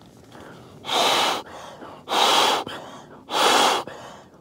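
A person blowing up an air mattress by mouth, breathing hard between blows into the valve: three loud breaths, each about half a second long, coming about every 1.2 seconds, with quieter blowing between them.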